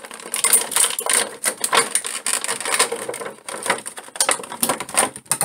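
Clear plastic figure packaging crinkling and crackling as hands pull and twist it: a dense run of irregular sharp crackles.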